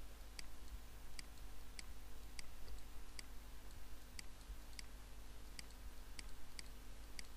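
Faint, sharp clicks, about a dozen, spaced irregularly roughly every half second to second, from the pointing device used to hand-write words stroke by stroke on screen, over a faint steady hum.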